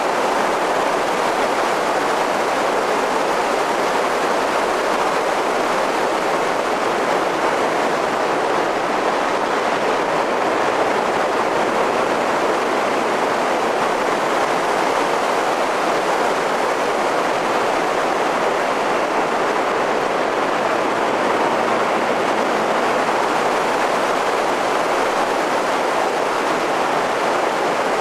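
Steady wind and tyre rush picked up by a camera mounted on the roof of a moving car: an even, unbroken hiss with no engine note standing out.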